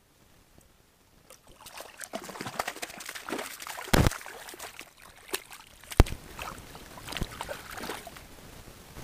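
Water splashing and trickling in an ice-fishing hole as a fish is hauled up through it by hand on the line, starting about a second in, with two sharp knocks about four and six seconds in.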